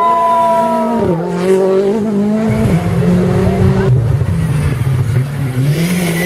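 Rally car engine running at high revs. Its pitch holds high, drops sharply about a second in, then climbs again in steps.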